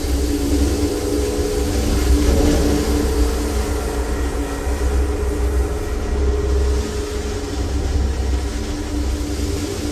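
Percussion ensemble holding a storm-like texture: a steady low rumble under several sustained ringing tones from a large gong played with a mallet, with a light hiss on top. A new, higher ringing tone joins about two seconds in.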